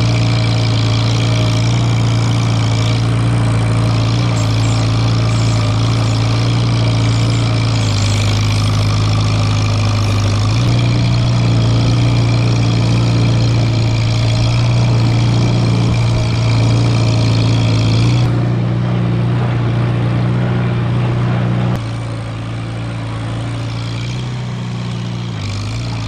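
Farmall Super A tractor's four-cylinder engine running steadily under load while it plows snow with a front blade. The engine note sags briefly about a third of the way through and recovers, and the sound drops a little in level past the two-thirds mark.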